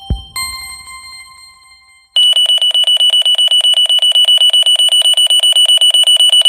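A deep thump with a short chime, then about two seconds in an alarm clock starts ringing: a loud, high-pitched, fast trill that keeps going.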